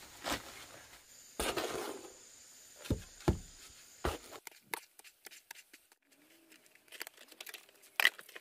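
A paper sack rustles as dry mix is poured out of it into a rubber mixing tub. Then a shovel strikes the tub with a few heavy scrapes and thuds, followed by scattered light clicks.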